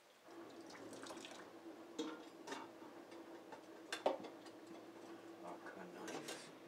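Kitchen tap running into a sink during hand dishwashing, with several sharp clinks of dishes and glassware knocking together, the loudest about four seconds in.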